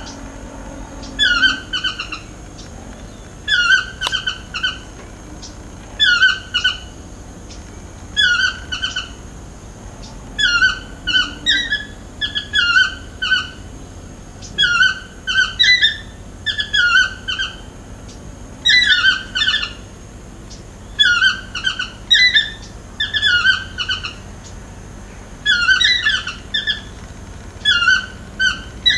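A chestnut-mandibled (yellow-throated) toucan gives its yelping "dios-te-dé" call over and over, a short phrase of two or three notes about every second. A faint steady high whine runs underneath.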